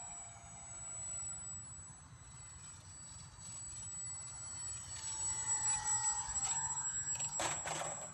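Model Tiger Moth biplane's motor and propeller whining faintly in flight, the pitch sliding down, rising again past the middle and dropping near the end. A few short scuffs follow in the last second as it touches down on dirt.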